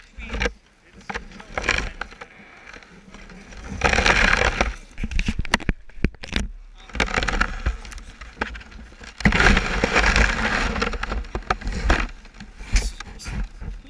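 Bursts of rustling and scraping right at a sled-mounted action camera, from gloved hands and snowy clothing rubbing against the camera and sled. There are two long stretches of this, the second longer, with softer crackles between.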